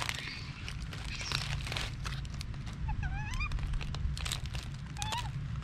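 Dry fallen leaves crackling and rustling under a young macaque foraging among tomato plants. About three seconds in a short wavering, rising animal call sounds, and a shorter one comes near the end.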